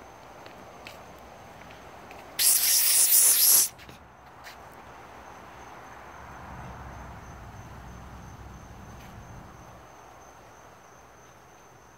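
Night insects trilling, one steady high-pitched note that holds throughout. About two and a half seconds in, a loud hiss lasts just over a second and cuts off.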